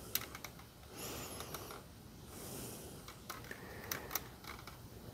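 Faint, irregular clicks and creaks from a jack-driven press squeezing a new rubber ring into a Ford 351 Windsor harmonic balancer, with two soft hissing rushes.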